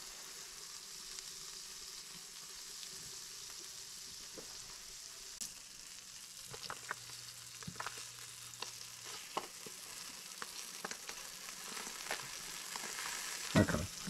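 Sheepshead fillets pan-frying in butter in a skillet over medium to medium-high heat: a steady sizzle, with scattered small pops and clicks in the second half.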